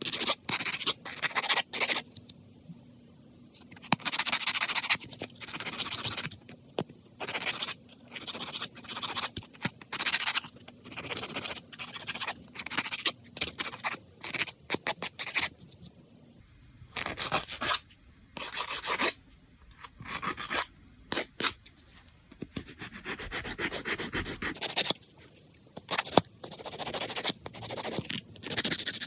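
A hand nail-care tool rubbing and scraping across fingernails in short, irregular runs of strokes with brief pauses between them.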